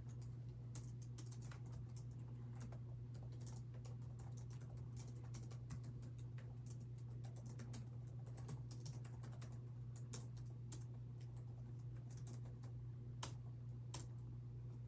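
Irregular, faint key clicks of typing on a computer keyboard, over a steady low electrical hum.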